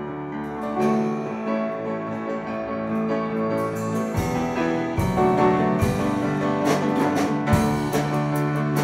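A small worship band playing an instrumental introduction: grand piano chords over electric bass and acoustic guitar. Drum hits come in about four seconds in, with quicker cymbal strokes near the end.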